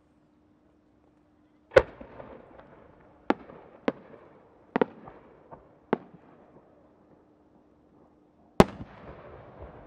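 Aerial fireworks from a 10-gō (about 30 cm) rising-effect, four-core changing chrysanthemum shell. A loud bang comes about two seconds in. Four sharper cracks follow over the next four seconds as the small rising-effect bursts go off, then the loud main burst near the end rumbles and echoes afterwards.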